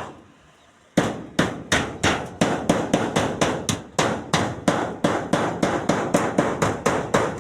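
A hammer striking in a rapid, even run of blows, about three a second, starting about a second in.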